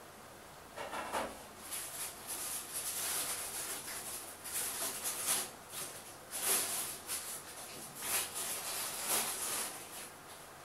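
Irregular rustling and rubbing noises: a run of short, uneven scrapes that starts about a second in and dies away near the end.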